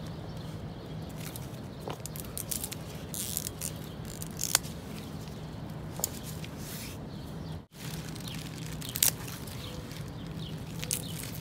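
Dry bamboo leaves and stalks rustling and crackling as a hand pushes through a dense bamboo clump, with scattered sharp snaps and clicks over a low steady hum. The sound drops out for a moment about two-thirds of the way through.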